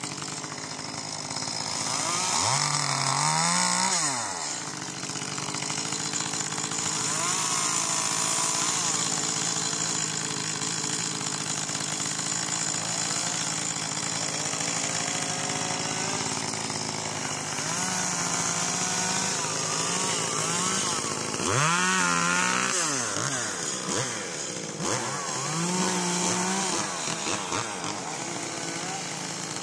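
Small chainsaw idling steadily and revving up several times, the pitch rising and falling back, as it cuts branches from an olive tree.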